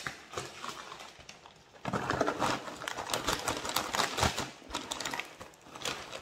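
A plastic bag of Marty's Cracklin' chips crinkling and rustling as it is handled and tipped, the chips rattling inside it and out onto a plate. The crackling gets loud about two seconds in and eases off near the end.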